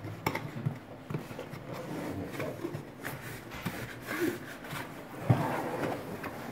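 Hands rubbing and sliding over a cardboard box as its lid is worked open, with a sharp knock about five seconds in.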